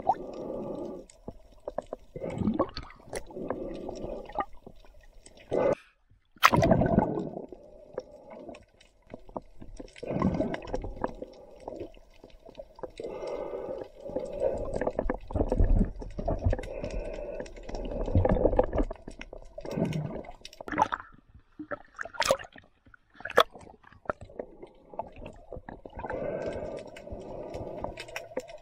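Muffled sloshing and gurgling of water heard with the microphone underwater, swelling and fading every second or two, with a few sharp clicks.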